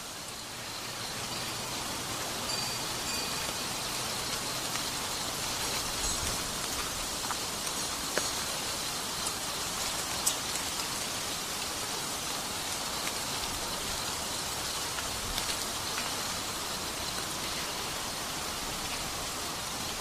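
Steady rain falling, with scattered sharp drips ticking over the even patter.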